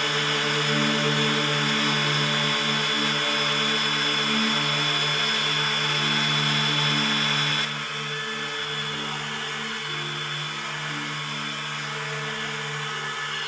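A power tool's motor running with a steady high whine and hiss, which cuts off suddenly about eight seconds in; steady low tones continue underneath.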